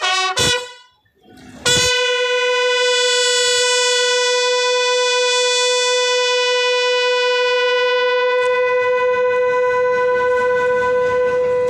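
A bugle call: a quick run of short notes, a pause of about a second, then one long note held steadily for about ten seconds.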